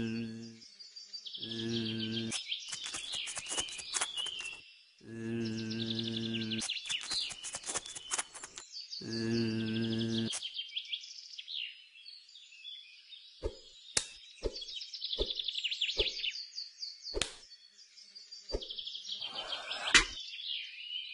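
Cartoon bee buzzing sound effect: a steady low buzz in four bursts over the first ten seconds, over a background of birdsong chirps. After that come scattered sharp clicks, and near the end a loud pop as a blowpipe dart is fired.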